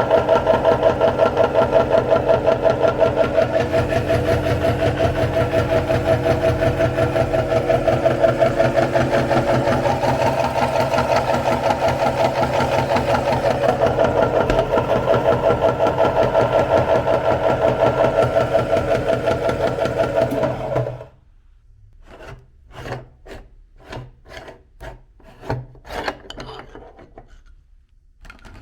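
Electric meat grinder running steadily, its motor humming with a fast rubbing, pulsing texture as it grinds ice cream. It cuts off suddenly about three-quarters of the way through, followed by scattered light clicks and knocks.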